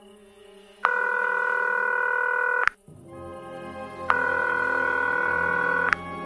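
Telephone ringback tone of an outgoing call, heard while waiting for an answer: two long steady rings of about two seconds each, the first about a second in and the second about four seconds in, over a faint low music drone.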